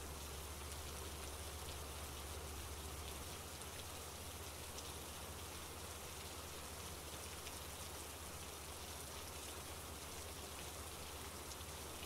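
Steady rain falling: a soft, even hiss with faint scattered ticks of individual drops.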